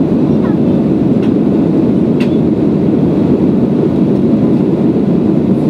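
Steady roar of an airliner's jet engines and rushing air, heard inside the passenger cabin during the climb after takeoff. A couple of faint ticks come about a second apart near the start.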